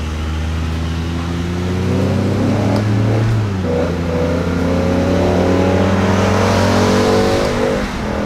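BMW M5's V10 engine, fitted with new ignition coils, pulling under acceleration: its note climbs steadily and grows louder, then drops back shortly before the end. Heard from inside the cabin with the windows down.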